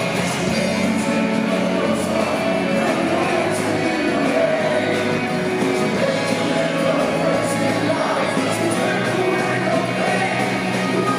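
Live pop-rock band performance: a male lead vocalist singing into a handheld microphone over electric guitar, keyboards and rhythm section, playing steadily throughout.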